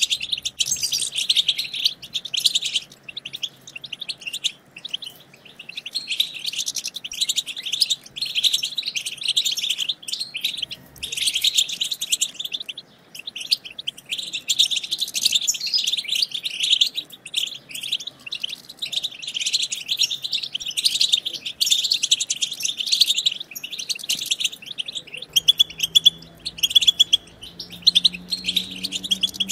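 European goldfinches twittering: a rapid, liquid chatter of short high chirps coming in dense bursts with brief pauses between them.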